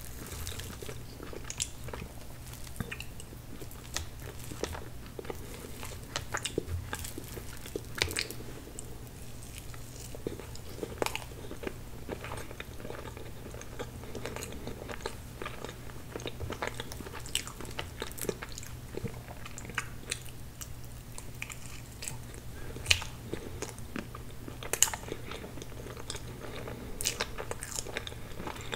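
Close-miked chewing and mouth sounds of someone eating soft tiramisu cake, with many irregular sharp wet clicks and smacks. A faint steady low hum runs underneath.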